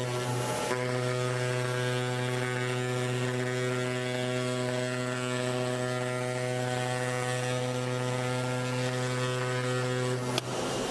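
CNC gasket cutter's pneumatic oscillating knife running as it cuts a graphite gasket sheet, a loud, steady buzzing hum. Near the end a sharp click sounds and the hum cuts off.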